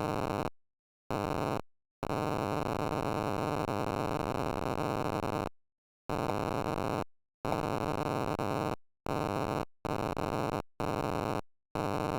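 Glitched "zipper" audio from a frozen Windows 9x virtual machine in VMware, set off by moving the mouse: a harsh buzz in about nine irregular bursts, separated by dead silence, the longest lasting about three and a half seconds.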